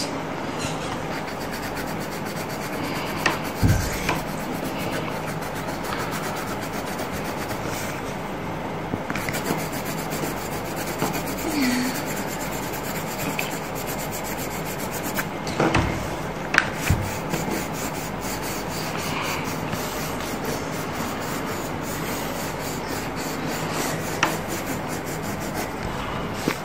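Green colored pencil scratching back and forth on coloring-book paper as a picture is shaded in, a steady sound with a few brief knocks.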